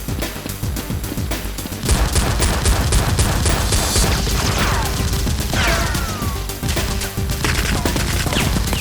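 Rapid, sustained gunfire in a fast clatter of shots, heaviest from about two seconds in, with a few falling whistle-like tones midway, over background music.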